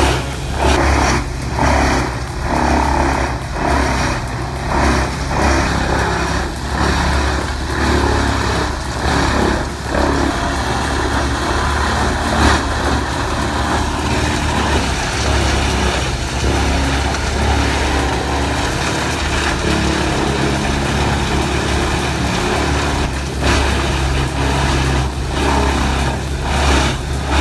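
Large wood chipper running under load: a steady heavy engine drone under the noise of wood being chipped. The noise pulses in regular surges for the first ten seconds or so, then evens out.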